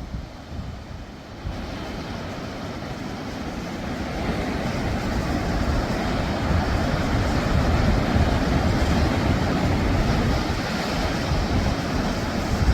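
Rushing noise of wind and surf that swells over several seconds and stays strong through the second half.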